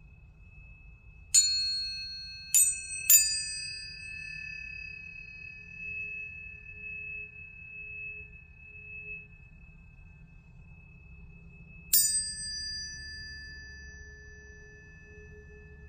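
Planetary tuning forks struck four times, three in quick succession near the start and one about twelve seconds in. Each strike is a bright metallic ping whose high overtones die away within a few seconds, leaving long, steady, pure ringing tones that overlap, with one high fork already ringing at the start.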